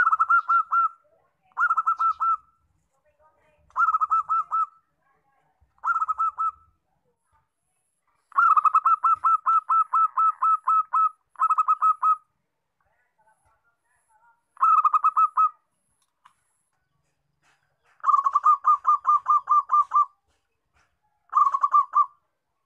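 Zebra dove (perkutut) calling: a string of short bursts of quick, staccato coo notes at about six notes a second. Most bursts last under a second, and two longer runs last two to three seconds.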